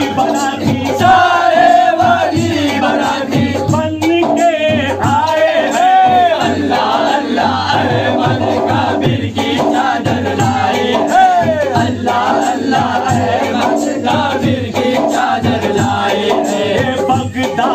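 A group of men singing a devotional song together, one lead voice singing into a microphone, with short percussive hits throughout.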